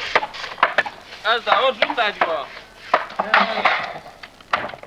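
Irregular hammer blows and knocking on timber from carpenters framing a roof, with a run of short squeaky pitched sounds about a second in.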